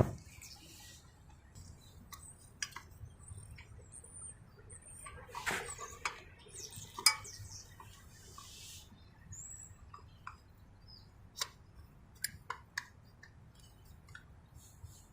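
Metal tools and engine parts clinking and tapping now and then, with a few sharp clicks and some faint scraping, as a motorcycle's crankcase cover is worked on by hand.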